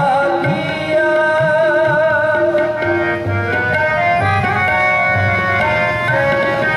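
Sikh kirtan music: two harmoniums playing sustained melody notes, accompanied by tabla with pitch-bending bass-drum strokes. A man's voice sings a wavering held line over roughly the first two seconds.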